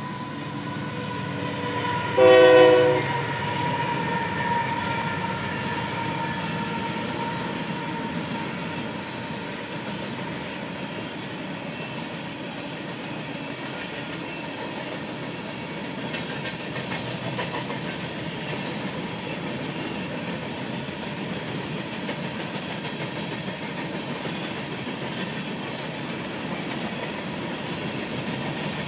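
Union Pacific coal train. A short locomotive horn blast about two seconds in is the loudest sound. It is followed by the steady rumble and clatter of the coal cars rolling across a steel girder bridge.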